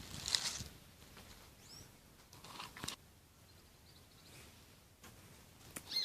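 Faint outdoor ambience with a few short bird chirps now and then, the clearest near the end, and a couple of crunching noises.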